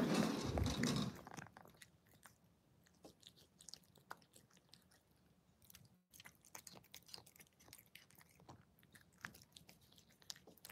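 Cat eating close to the microphone: irregular, quick crunching and chewing of its food from a bowl. A louder rustle of the phone being handled comes in the first second or so.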